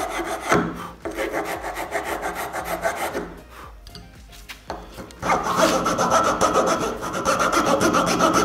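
Round file rasping inside the elongated peg hole of a wooden tenon in quick back-and-forth strokes, clearing out the hole so the breadboard end will slide on. The strokes stop for about two seconds near the middle, then start again in a faster, steadier run.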